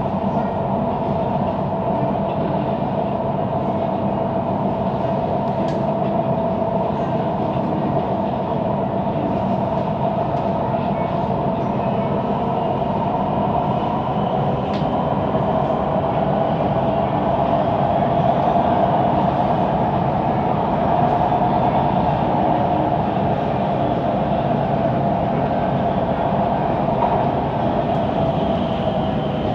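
Siemens Inspiro metro train running at speed between stations, heard from inside the carriage: a steady rumble of wheels on rail with a droning tone over it, the weird rolling noise of this train, swelling slightly midway.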